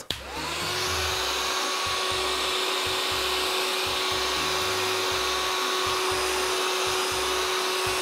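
Hyundai VC01R cordless vacuum's hand unit switched on, its 12 V battery-powered motor rising in pitch for about half a second and then running at a steady whine. It is sucking up a small pile of ground coffee.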